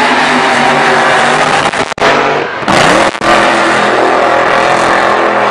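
Drag-race car's engine accelerating hard at full throttle down the strip. The note cuts out sharply twice, about two and three seconds in, and climbs again after each break, as at gear changes.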